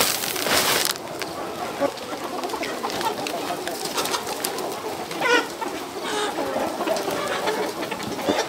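A large flock of chickens calling: a busy mix of soft clucks and short chirps with many small clicks, and one clearer call about five seconds in. A loud hiss cuts off about a second in.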